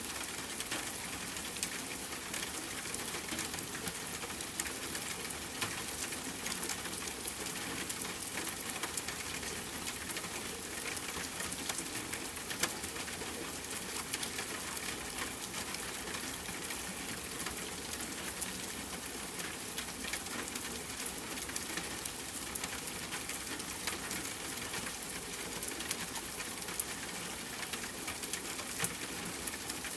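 Steady rain falling, a constant hiss made up of many small drop ticks, with a few louder drips here and there.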